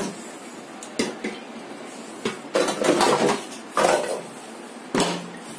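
Kitchen utensils and dishes being handled on a counter: a few sharp knocks and short bursts of clattering.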